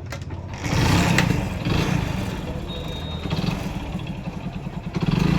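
Hero Honda Splendor's single-cylinder four-stroke motorcycle engine running. Throttle is opened under a second in, and again near the end.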